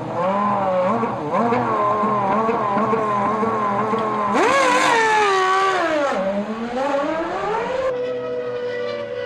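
Formula One car's V10 engine revving up and down through gear changes, with a sharp rise in pitch about four seconds in, then a long falling note as the car slows. The sound changes abruptly near the end to a steadier engine note.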